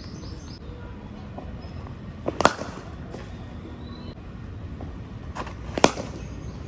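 New leather cricket ball struck by a willow bat twice, about three seconds apart. Each loud crack comes a fraction of a second after a softer knock as the ball pitches on the turf, and the second crack is the louder.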